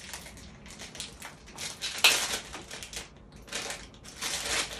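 Plastic soap wrapping crinkling in irregular bursts as it is pulled open by hand, loudest about two seconds in and again near the end.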